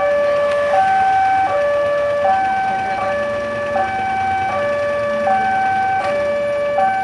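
Railway level-crossing warning siren sounding a steady two-tone hi-lo alarm, switching between a higher and a lower pitch about every three-quarters of a second, the signal that a train is approaching and the crossing gates are closing.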